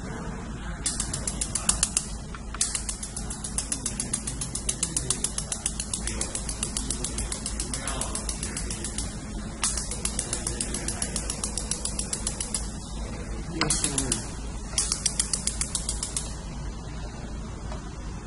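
Pulsed laser welder firing at thin metal in fast runs of sharp ticks, several a second, with short pauses between runs, over a steady low machine hum. The ticking stops a couple of seconds before the end.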